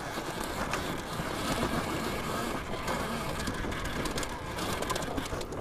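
Alta Redshift MXR electric dirt bike riding over dirt: no engine note, just the drive chain clacking on the sprockets, with tyre and suspension noise and many small knocks throughout.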